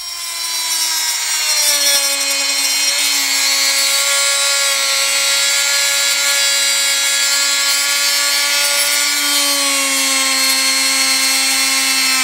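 Oscillating multi-tool running steadily with its blade cutting into a painted wooden trim strip: a loud buzzing whine. Its pitch drops slightly in the first couple of seconds as the blade takes the load.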